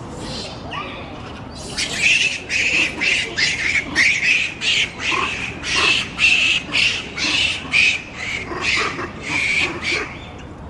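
Japanese macaque giving a rapid series of harsh, screeching calls, about two or three a second. The calls start about two seconds in and stop shortly before the end.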